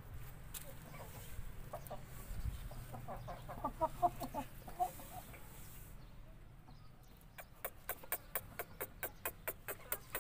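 Young Aseel chickens clucking in a short series of soft calls. Near the end comes a run of sharp, evenly spaced clicks, about four a second.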